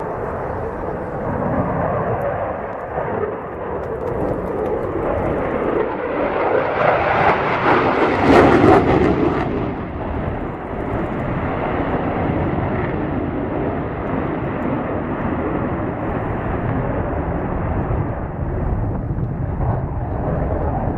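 Aircraft engine noise of a plane flying past, swelling to its loudest about eight seconds in and then easing off to a steady drone.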